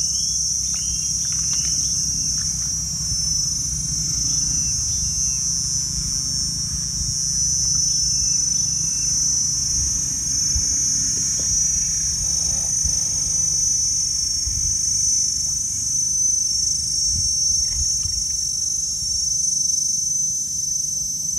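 Steady, high-pitched buzzing chorus of insects, with a low rumble underneath.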